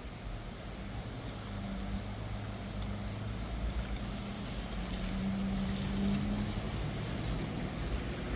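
A motor vehicle's engine running nearby with a steady hum that grows a little louder, over a rush of wind noise on the microphone.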